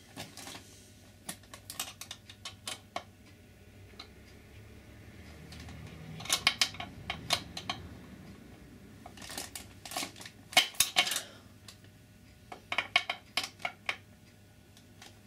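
Metal hand tools clinking and clicking on metal, in three short bunches of sharp clicks.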